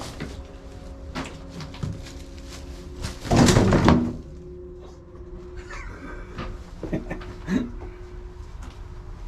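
Footsteps and small knocks in an underground shelter tunnel over a faint steady hum, with one louder scraping crunch of under a second about three and a half seconds in.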